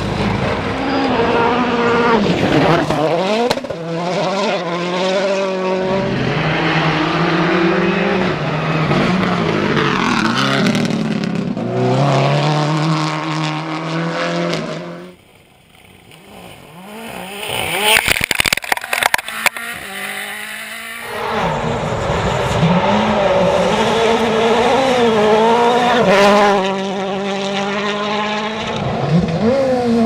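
Rally cars driven flat out on a gravel special stage, their engines revving hard and rising and falling through the gears as they slide past, with tyres scrabbling on the loose surface. About halfway through the sound drops away briefly, then a further-off car is heard coming closer before close engine noise returns.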